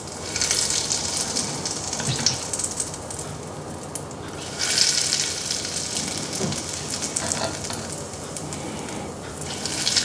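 Hot frying oil poured over red chili powder and spices, sizzling and crackling. The sizzle swells at the start, about halfway through, and again near the end.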